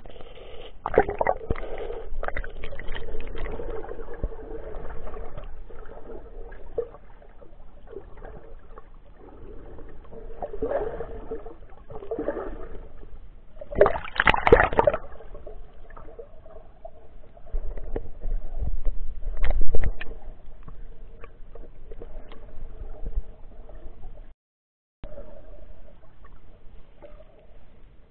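Seawater sloshing and gurgling around a camera held underwater in shallow sea, in uneven swells, with a louder splashing burst about halfway through as it breaks the surface. The sound cuts out for a moment near the end.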